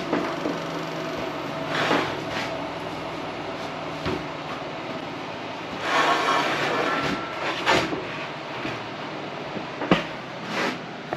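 Laguna Fusion F1 table saw running, its blade ripping a white oak board: a steady motor hum under the cutting noise, with several louder surges as the board is fed through.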